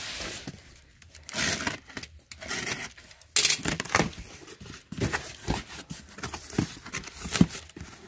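Cardboard carton being opened: a box cutter slicing packing tape in a few short rasps, then the flaps pulled apart with a sharp rip of tape and cardboard. After that come light knocks and rustles of cardboard as the smaller boxes packed inside are handled.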